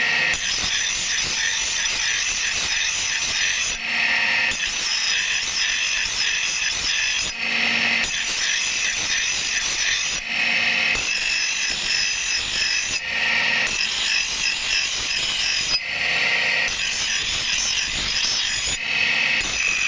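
Steel axe blade being ground on a motor-driven abrasive grinding wheel, throwing sparks. It is a steady grinding hiss in long passes, broken by short pauses about every three seconds where the wheel's running tone shows through.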